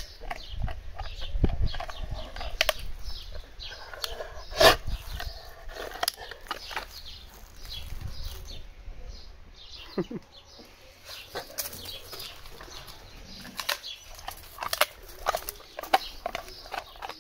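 A bull terrier chewing a dried beef trachea, its teeth crunching the ridged cartilage in irregular crunches and clicks, with one sharper crack about five seconds in.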